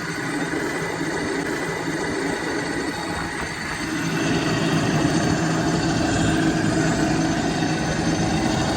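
An engine or motor running steadily, with a low hum that grows louder about four seconds in.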